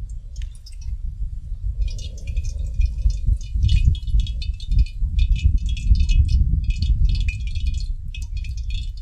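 Wind buffeting the microphone in a steady low rumble. From about two seconds in there is also a fast, high-pitched tinkling chatter of many short ticks.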